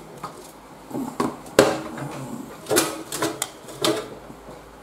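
A scattered series of sharp clicks and knocks from small hard objects being handled and set down, the loudest about a second and a half in.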